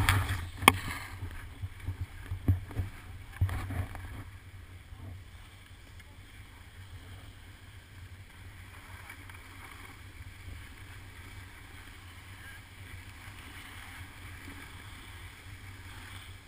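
A few sharp knocks and bumps in the first four seconds as the action camera is handled, then a steady muffled rumble of wind and skis sliding on snow, heard through the camera's waterproof housing while skiing down a piste.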